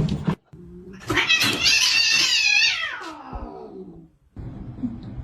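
A domestic cat giving one long, drawn-out meow, wavering in pitch and falling away at the end.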